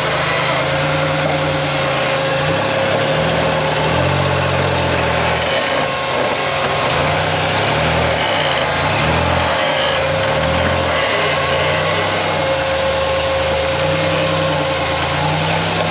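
Rock-crawling buggy's engine under load, revving up and down in repeated pulses as it crawls over rock ledges, with a steady whine alongside.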